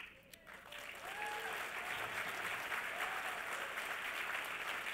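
Audience applauding, building up about half a second in and then holding steady.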